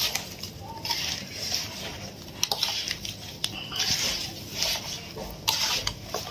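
Hands tossing and mixing cut raw mango pieces coated in chilli powder and oil in a large stainless steel bowl: a repeated moist rustling and squishing every second or so, with a few sharp clicks.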